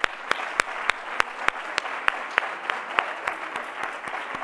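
Audience applauding, with one pair of hands close to the microphone clapping sharply and evenly, about three claps a second, over the crowd's denser clapping.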